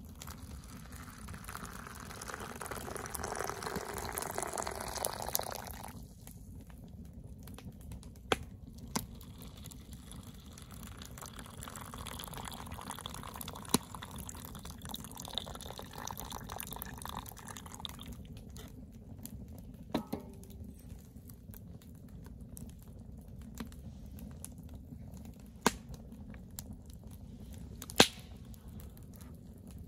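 Hot liquid poured from a kettle into a collapsible plastic camp cup, filling for about five seconds at the start; a second cup is filled the same way, more softly, in the middle. Now and then a sharp crackle comes from the wood fire, the loudest near the end.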